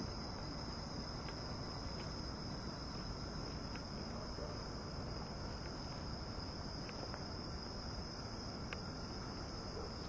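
Evening insect chorus, crickets trilling in one steady, unbroken high-pitched band, over a low, even background noise.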